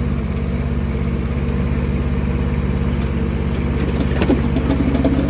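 Small mini excavator engine running steadily, with a single sharp knock about four seconds in.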